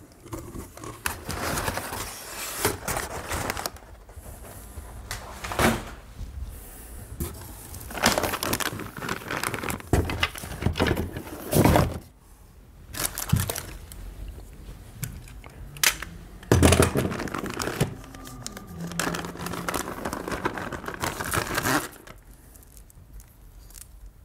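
Crumpled kraft packing paper rustling and a cardboard box being handled, in irregular bursts with a few sharp knocks; it quietens near the end.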